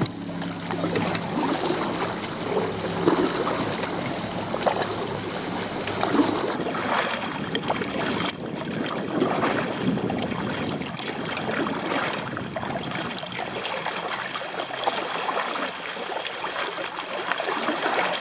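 Kayak paddle strokes dipping and splashing, with water swishing and lapping along the hull. A faint steady hum sits underneath for the first six seconds or so.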